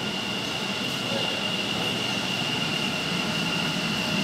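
Metro train running behind the platform screen doors of an underground station, a steady rumble with a high, steady whine held throughout; it grows a little louder about a second in.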